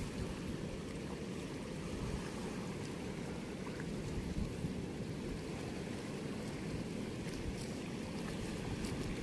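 Floodwater rushing steadily through a weir's sluice gate: a continuous low rushing noise.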